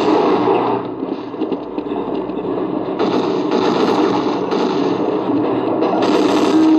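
Video game sound from a laptop's built-in speakers: a continuous dense, rough noise that gets fuller and a little louder about three seconds in.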